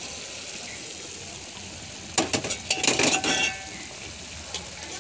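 Chicken masala sizzling in a frying pan with a steady hiss. About two seconds in comes a quick run of metal clinks and scrapes against the pan, lasting about a second.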